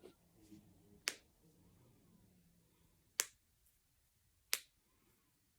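Knuckles cracking: three sharp pops about a second, three seconds and four and a half seconds in.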